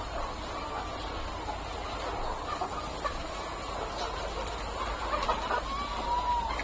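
A flock of chickens clucking and calling, many overlapping calls at once, with one clearer drawn-out call near the end.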